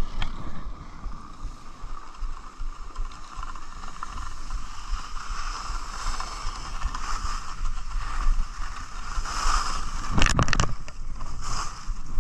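Skis sliding and scraping over snow, a steady rushing hiss, with wind buffeting the microphone. There are a few sharp knocks about ten seconds in.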